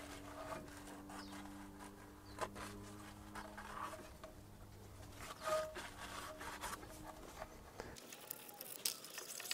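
Quiet handling of a car's front brake caliper as it is wiped with a cloth, with a few light taps, over a faint steady low hum that stops about seven seconds in.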